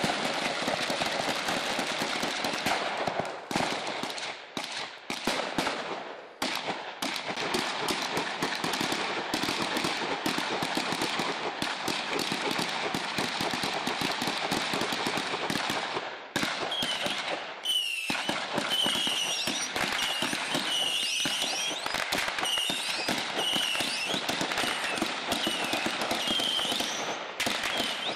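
Long strings of rapid shots from a suppressed short-barrelled 5.56 AR-15 (Spike's Tactical Compressor), with a few brief breaks between strings.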